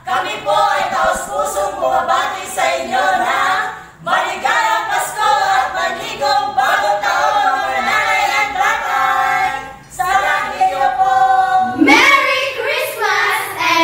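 A small group of mostly women's voices singing together unaccompanied, in phrases with short breaks between them. Near the end a different group of women's voices takes over the singing.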